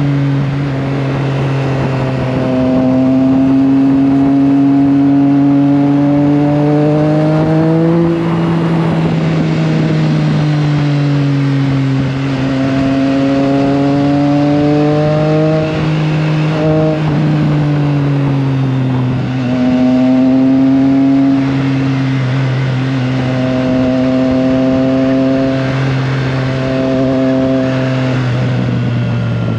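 Triumph Trident 660's inline three-cylinder engine pulling the bike along. Its note climbs slowly and eases off several times with the throttle, over a steady rush of wind.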